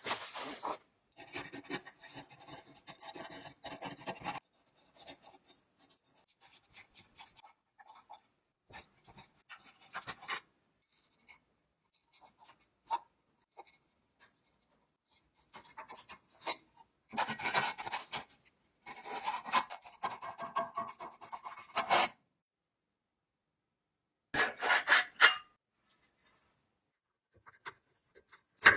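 Hand scraping and rubbing in short, irregular strokes, in several separate stretches broken by dead-silent gaps.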